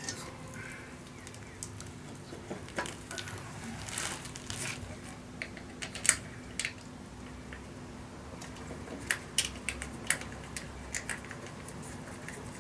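Irregular light clicks and metallic clinks of hand tools and parts at a Honda Dio scooter's rear wheel and muffler, over a faint steady hum.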